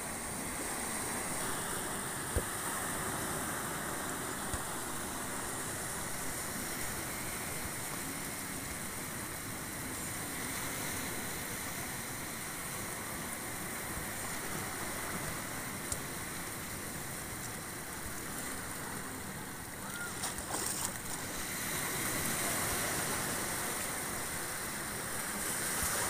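Small sea waves washing in and lapping over a rocky shore: a steady wash of surf, with a couple of brief sharp clicks.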